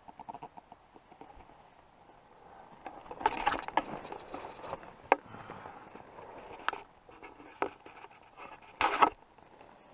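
Camping gear being handled and packed: irregular clicks, light clinks and rustling, with a louder short clatter near the end.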